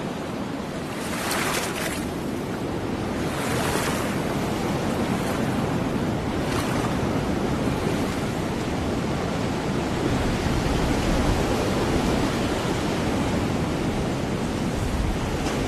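Storm surf breaking and washing up a beach, with strong wind rumbling on the microphone. Two louder rushes of water come about one and three seconds in, and the wind rumble grows stronger in the second half.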